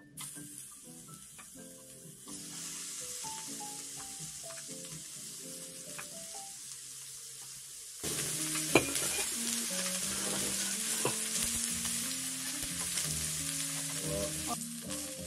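Slices of pork belly sizzling on a hot ridged grill pan over a portable gas stove, the sizzle much louder from about eight seconds in, with a few sharp clicks of chopsticks on the pan. A simple tune of short stepped notes plays along.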